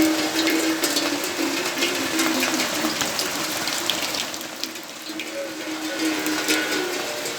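Rain falling, with many separate drops striking hard surfaces and water running and splashing, a low wavering tone running through it.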